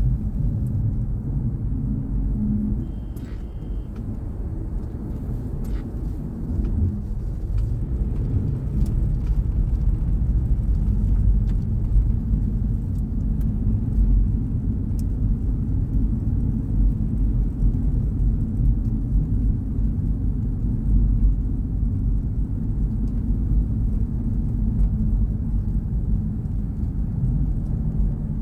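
A car driving, with a steady low rumble of engine and tyre noise on a snowy road.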